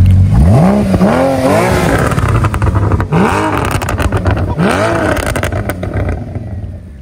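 A car engine revving hard from idle, about four blips, each rising in pitch and falling back. It settles down near the end.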